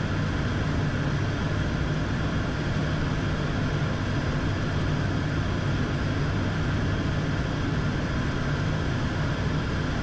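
ATR turboprop's engines and propellers droning steadily, heard from inside the cockpit during a landing approach: an even rush of noise with a constant low hum.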